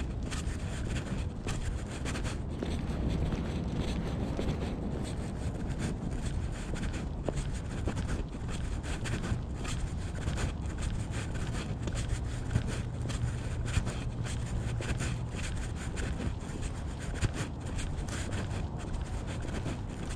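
Wind and rubbing noise on a body-worn GoPro's microphone during a walk, a steady rumble broken by many small irregular scuffs and a few sharper knocks. A low steady hum joins in for a few seconds about twelve seconds in.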